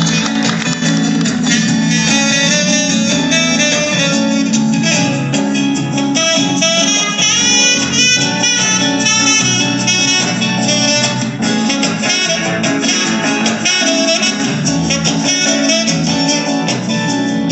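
Live band playing an instrumental passage, a saxophone over acoustic guitar and keyboard.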